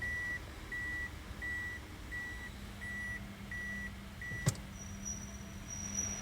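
A car's electronic warning beep sounds about seven times in an even rhythm and stops, followed by a sharp click. Then a steady high-pitched squeal sets in: the Toyota Altis's abnormal noise when pulling away from a cold start.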